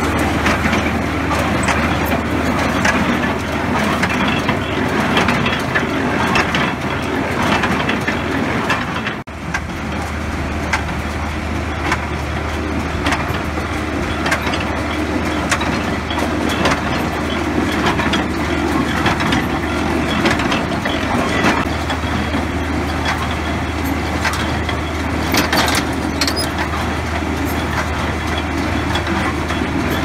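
International Harvester 37 square baler running while baling hay: a dense, continuous mechanical clatter from its feed and baling mechanism over a steady low engine drone, with a brief break about nine seconds in.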